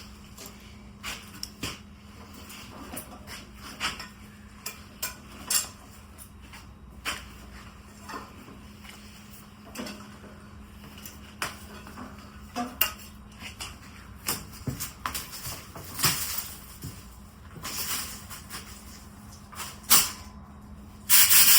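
Scattered metallic clinks and knocks of tools and metal parts being handled, over a steady low hum. Just before the end comes a loud hiss of compressed air from an air-compressor blow wand.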